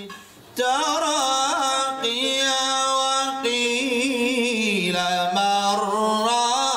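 A man's voice chanting the Quran in melodic tajweed recitation into a microphone. After a short breath pause at the start, he sings long held notes with wavering ornaments, one gliding down about five seconds in.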